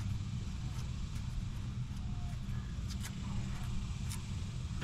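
Worn outer tie rod end being spun off the inner tie rod's threads by hand, giving a few faint metal clicks about three and four seconds in, over a steady low rumble.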